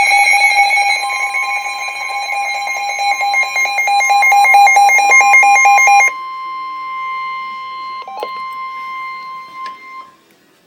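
Emergency Alert System alert for a severe thunderstorm warning: loud steady alert tones with a rapid warbling data signal over them for about six seconds. After that a quieter single steady tone runs on, stopping about ten seconds in.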